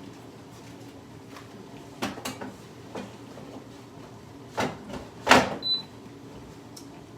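Air fryer being closed up and handled: a few knocks and clunks, the loudest about five seconds in, then a short high beep.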